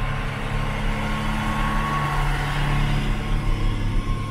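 Combine harvester engine running steadily, an even low hum with a faint steady whine above it.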